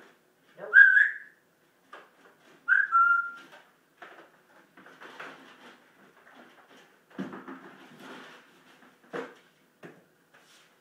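African grey parrot whistling: two loud, clear whistled notes, the first rising in pitch about a second in and the second held and dipping slightly, followed by quieter, irregular sounds.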